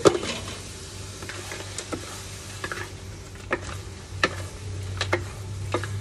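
Wooden spatula stirring seafood in a thick sauce in a wok, knocking and scraping against the pan in scattered clicks, the loudest right at the start, over a low steady hum.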